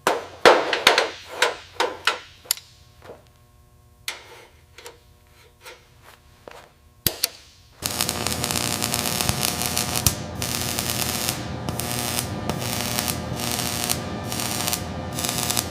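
A quick series of hammer blows, then a quieter hum, then a power tool starting about eight seconds in and running loudly and steadily, with regular surges in its sound.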